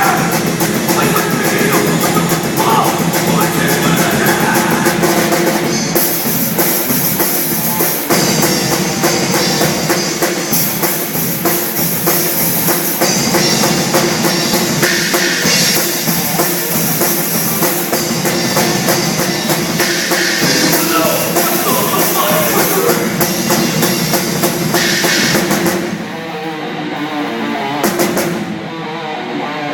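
Heavy metal played live: a band with a pounding drum kit and guitar. The sound thins out and drops a little near the end.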